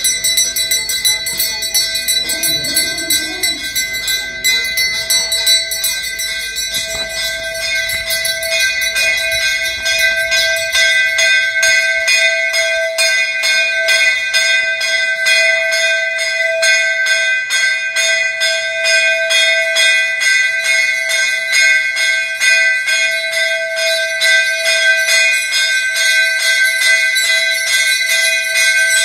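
Temple bells ringing fast and without pause, a dense clatter of strikes over several held ringing tones; the ringing grows a little louder about a third of the way in.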